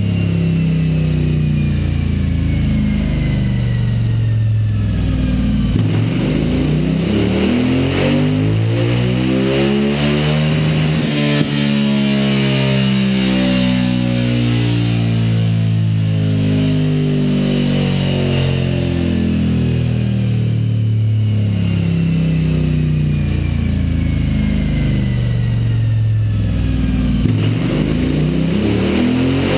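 Suzuki V-Strom 1000's V-twin engine, breathing through an aftermarket Scorpion Serket exhaust, running under load on a chassis dyno. The revs climb about a fifth of the way in, stay high, and drop back near the end, with music playing over it.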